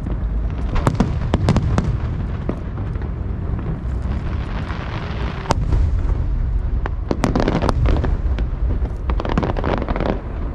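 Aerial fireworks display: rapid sharp bangs and cracks over continuous low booming, with a stretch of crackling hiss about halfway through.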